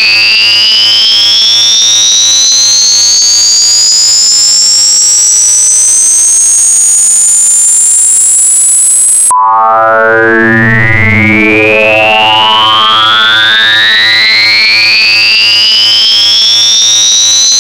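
Electronically generated tinnitus-masking sound: two tones gliding steadily upward together into a loud, high-pitched whistle. About nine seconds in they drop abruptly back to a low pitch and start climbing again.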